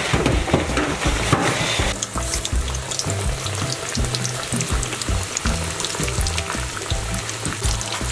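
Breaded chicken breast deep-frying in hot oil in a pan: steady sizzling with many small crackling pops.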